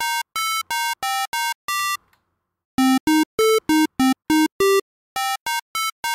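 Software synthesizer (Sytrus) playing a short square-wave melody of quick, evenly spaced notes three times. The first and last runs have the fundamental removed and sound thin and hollow, though the notes keep the same pitch. The middle run, about three seconds in, has the fundamental restored and is louder.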